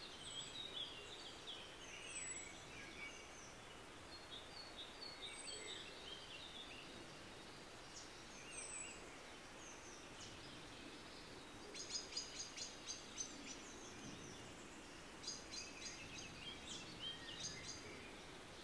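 Songbirds singing outdoors: scattered short chirps and whistled phrases over a faint steady hiss, with two runs of quick repeated sharp notes in the second half.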